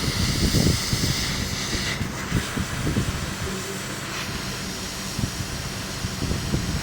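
Steady hiss of blowing air, as from a hot air blower drying a freshly cleaned motherboard, a little louder for the first two seconds then continuing slightly softer.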